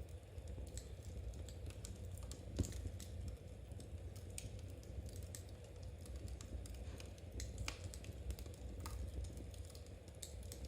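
Knitting needles clicking lightly and irregularly, with one sharper click about two and a half seconds in, over a low steady rumble.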